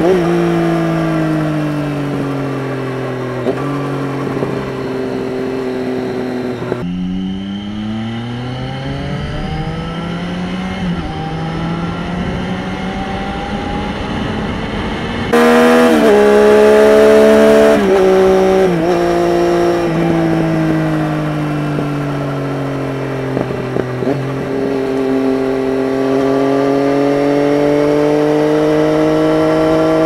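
A Triumph Street Triple 675's inline three-cylinder engine under way. The engine note falls as the bike slows, then climbs steadily under acceleration. It gets louder about halfway, with quick gear-change steps in pitch, then eases off and builds again near the end.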